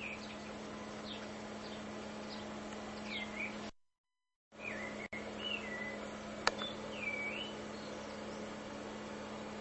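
Faint, high-pitched chirping whistles from a newborn hedgehog: a few short calls that rise and fall in pitch, over a steady low hum. The sound drops out briefly about four seconds in.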